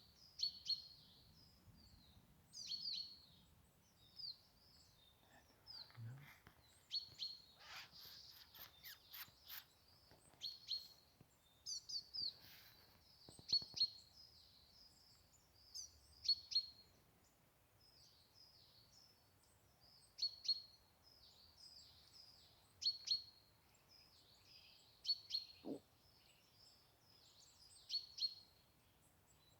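Songbirds singing outdoors in spring: short high chirping phrases repeated every second or two, with some faint rustling in the middle.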